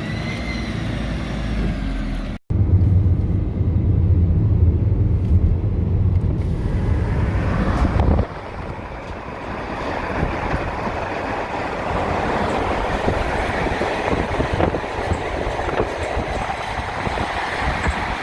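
Sherp 10x10 amphibious off-road vehicle running while driving, heard in edited pieces. After a brief cut a steady deep drone comes in, and about eight seconds in it changes abruptly to a rougher, noisier rumble.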